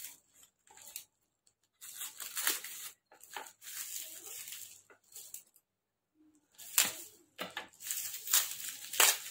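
Thin black plastic packaging crinkling and tearing as it is pulled open by hand, in irregular rustling bursts with two pauses of about a second.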